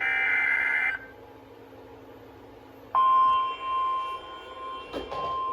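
NOAA Weather Radio Emergency Alert System alert. It opens with the last of the SAME header data bursts, a one-second buzzy electronic screech. About two seconds later the steady 1050 Hz warning alarm tone begins and holds, announcing a new severe thunderstorm warning.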